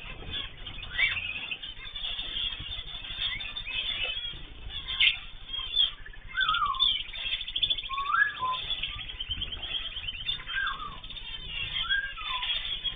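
Mixed cage birds (cockatiels, zebra finches and canaries) calling together: many short chirps and repeated whistled calls that bend up and down in pitch, with a fast trill about eight seconds in.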